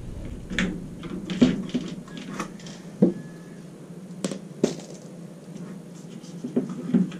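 Scattered light clicks and taps from hands working the small screws and plastic frame of an RV roof vent, over a steady low hum.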